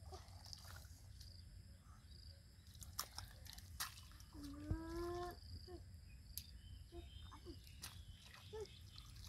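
Faint sloshing and squelching of muddy water and mud as it is scooped with a plastic bowl, with scattered small clicks. About five seconds in, a single drawn-out call of about a second rises slightly in pitch.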